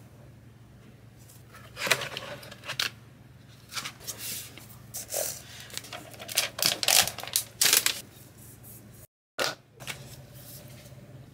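Unboxing handling noise from a new tablet: rustling of a plastic protective film sheet and scattered taps and clicks as the tablet and its keyboard cover are handled, over a steady low hum.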